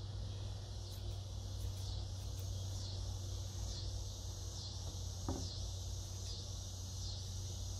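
Outdoor insect chorus: a steady high-pitched drone that pulses a little under twice a second, over a low steady hum. One light click about five seconds in.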